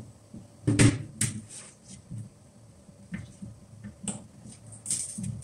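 Handling sounds from work on an opened hard drive: a few sharp clicks and light taps, the loudest about a second in, over a faint steady hum.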